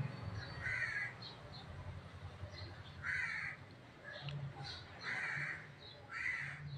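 A crow cawing in the background, about four short caws spaced a second or two apart, fairly faint.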